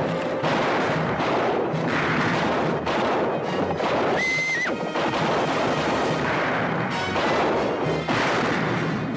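Western battle soundtrack: dramatic music over gunfire and horses neighing.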